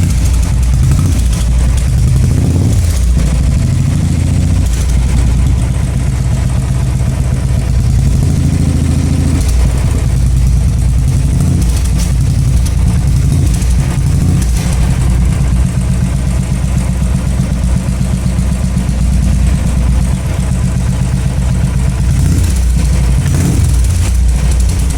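Royal Enfield single-cylinder engine running through a Monster cutting aftermarket silencer, idling with its pitch rising and falling a few times as the throttle is blipped.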